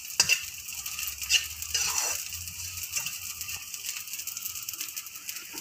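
Pieces of edible gum (gond) sizzling in hot ghee in a metal wok, puffing up as they fry, while a metal spatula stirs them and now and then scrapes and knocks against the pan.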